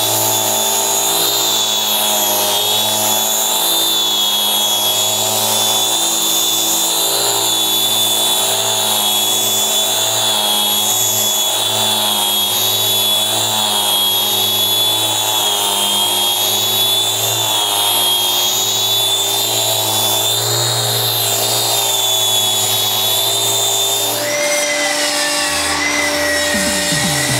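Electric random-orbit sander running flat out in its turbo mode, its 80-grit mesh abrasive stripping stain and hard wax oil from an oak tabletop back to bare wood; a steady motor whine. It cuts off suddenly about 24 seconds in, and a different steady tone follows.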